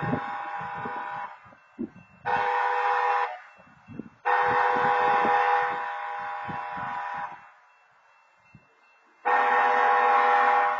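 Southbound BNSF locomotive's air horn sounding the long-long-short-long grade-crossing signal, because the crossing's wayside horns have timed out. A long blast ends about a second in, a short one follows near 2.5 s, then a long one of about three seconds, and a new long blast starts about 9 s in.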